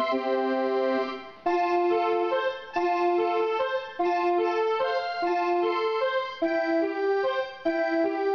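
Duet on two Casio electronic keyboards: a simple stepwise melody in a sustained organ- or accordion-like voice, each note held at an even level for about half a second to a second rather than dying away like a piano.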